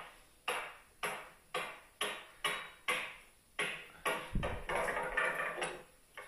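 Repeated sharp blows, about two a second, ringing briefly as they drive an axe into the end of a frozen green oak log. About four seconds in, the log splits apart with a heavier thud and the crackle of tearing wood fibres.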